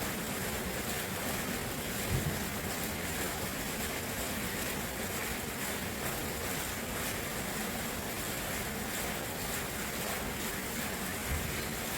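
Steady rushing of running water, an even unbroken wash of noise, with two brief low thumps, one about two seconds in and one near the end.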